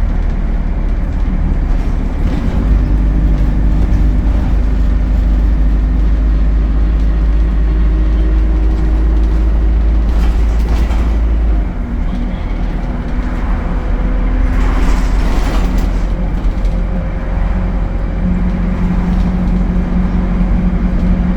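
ADL Enviro 200 single-deck bus's diesel engine running steadily. About twelve seconds in, the deep drone drops and a steady whine changes pitch.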